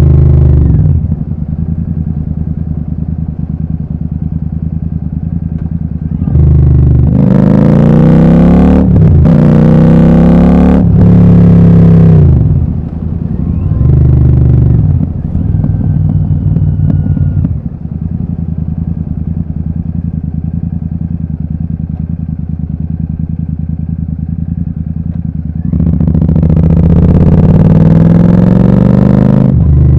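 Royal Enfield Super Meteor 650's 648 cc parallel-twin engine through a Gursewak aftermarket exhaust with the dB killers removed, idling steadily and revved with the throttle. A quick series of revs comes about a third of the way in, a short blip follows soon after, and one longer rev comes near the end, each rising and falling back to idle.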